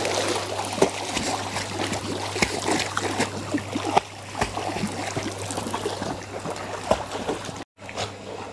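The tail of a big splash as a dog lands in a swimming pool, then continuous splashing and sloshing water as it paddles, with many small irregular splashes.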